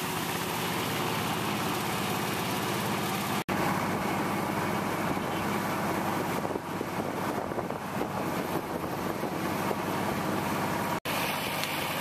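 Motor vehicle engines idling with a steady low hum under even outdoor noise. The sound cuts out completely twice for an instant, about a third of the way in and near the end.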